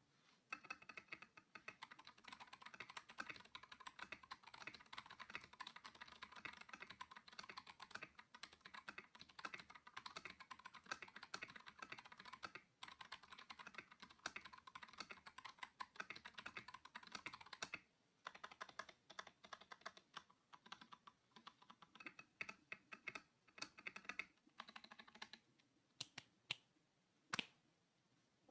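Fast, continuous typing on a Vortex VX8 mechanical keyboard fitted with non-lubed Akko Lavender Purple tactile switches and PBT XDA keycaps. Near the end the typing thins to a few separate keystrokes.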